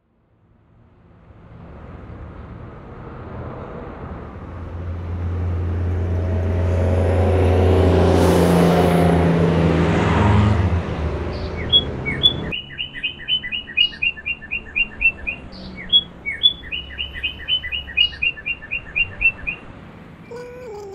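Street traffic noise with a low engine hum swells over about ten seconds to a loud rush, then breaks off. A small bird then chirps in quick repeated runs of sharp, high notes.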